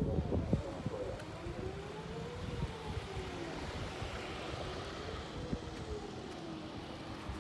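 Distant outdoor warning siren sounding a faint wail, its pitch rising and falling slowly about every three seconds, with wind rumbling on the microphone.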